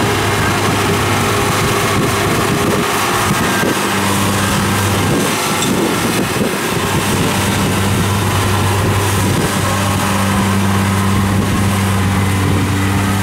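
Kubota DC-70 rice combine harvester running steadily in the field: a steady low engine hum under the noise of its working machinery.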